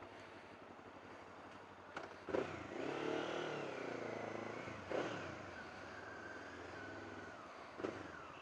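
1999 Honda CB500S parallel-twin engine pulling away, its pitch rising about two seconds in, easing back a couple of seconds later and then running steadily. A few short sharp knocks along the way.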